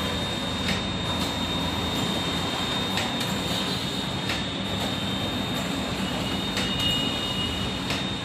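Canon imageRUNNER iR 3045 digital copier running: a steady mechanical hum with a constant high whine and scattered light clicks.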